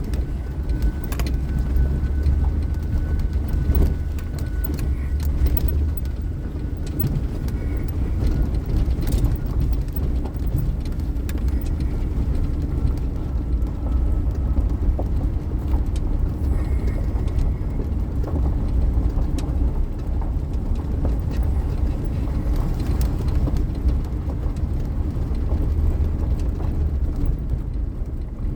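Steady low rumble of a car in motion, with scattered faint ticks.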